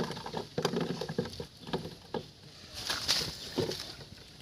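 Shallow water splashing and sloshing in short, irregular bursts, with light knocks, as fish are caught by hand and trap. There is a longer splash about three seconds in.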